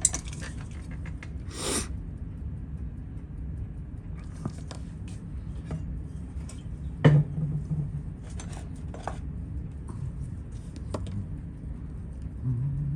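Scattered light clicks and taps of small metal watchmaker's tools on a Seiko 7A28 chronograph movement while the battery is pried out, the sharpest about seven seconds in.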